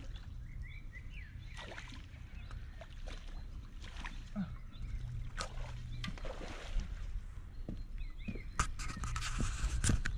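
Water sloshing and draining as a landing net with a carp in it is lifted from the lake and carried up the bank, with knocks and rustling of the wet net and footsteps on the grass. Small birds chirp a few times over a low wind rumble.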